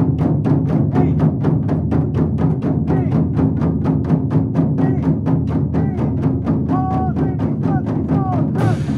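A group of taiko drums struck together with bachi sticks in a fast, even beat. The beat stops with a last strong stroke near the end, and the drums ring out.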